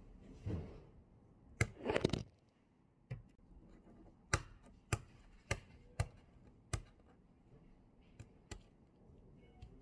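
An egg being knocked against a desk top to crack its shell: a quick cluster of knocks about one and a half seconds in, then single sharp taps roughly every half second, ending with two lighter ones near the end.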